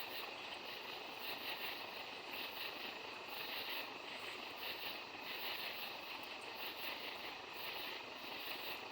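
Chorus of night insects, shrill and pulsing several times a second, over a steady background hiss.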